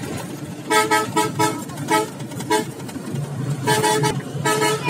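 A vehicle horn honks in a string of short blasts, a quick burst of toots in the first half and a few more near the end, heard from inside a bus over the steady low hum of its engine.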